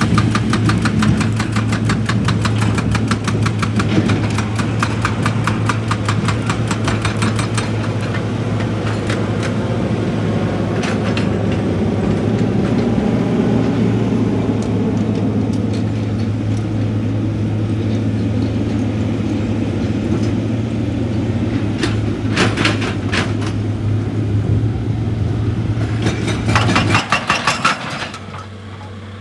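Heavy excavator's diesel engine running steadily, with spells of rapid, evenly spaced hammering on rock, the longest at the start and two shorter ones near the end. The engine sound drops away near the end.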